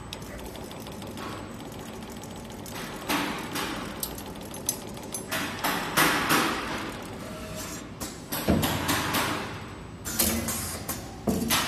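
Automatic steel rule bending machine feeding and bending a strip of steel rule: a steady mechanical hum, then from about three seconds in, a series of sharp clacks and knocks in quick clusters as the bending head works the rule.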